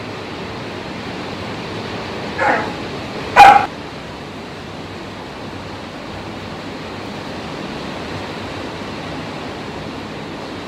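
A dog barks twice, a softer bark about two and a half seconds in and a louder, sharper one a second later, over the steady hiss of pouring rain.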